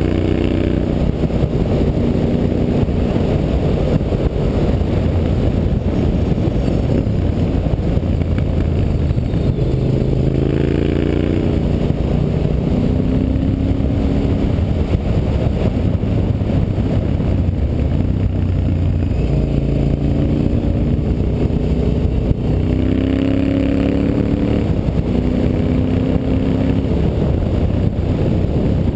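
Honda Varadero 1000's carburetted V-twin engine running under way as the motorcycle is ridden, heard from an on-board camera. The engine note climbs in pitch as it pulls, about ten seconds in and again after twenty seconds.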